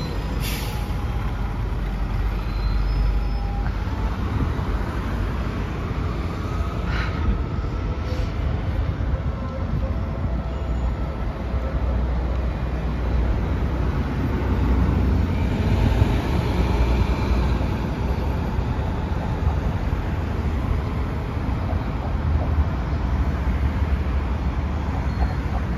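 Street traffic with TVR rubber-tyred guided trams passing, a steady low rumble of tyres and running gear.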